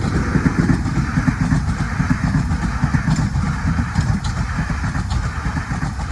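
Two coupled Class 395 Javelin electric multiple units passing at speed: a loud, steady rumble of wheels running on the rails.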